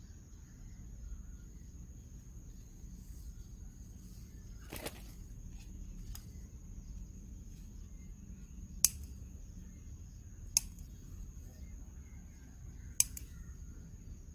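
Garden scissors snipping eggplant stems: sharp single snips, three loud ones about two seconds apart in the second half, with fainter clicks before them. A steady high insect drone, cricket-like, runs underneath.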